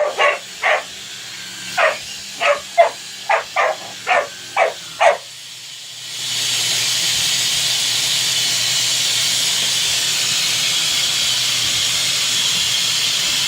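A puppy barks about ten times in short, sharp barks at a vacuum cleaner. About six seconds in, the vacuum cleaner's motor swells up over half a second and then runs steadily with a loud, airy hiss.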